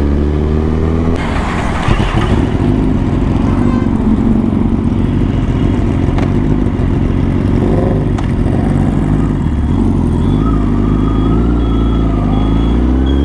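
Honda CBR1000RR Fireblade's inline-four engine heard from the rider's seat: its pitch falls as the bike slows in the first second, then it runs at low revs in slow traffic. A rush of noise, likely wind, comes through between about one and two and a half seconds.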